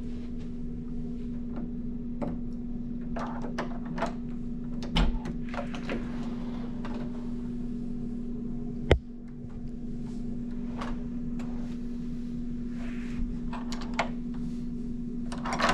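A steady low hum of room noise with scattered light clicks and knocks from handling. A sharp, loud click about nine seconds in is the loudest sound.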